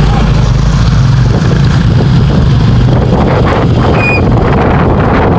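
Loud, steady engine rumble of road vehicles close by: a coach bus passing with small motorcycle engines running as they pull out.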